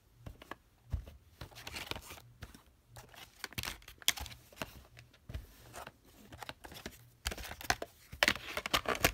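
A VHS cassette being handled and slipped into a plastic clamshell case: irregular plastic clicks, knocks and rustling, busiest in the last two seconds.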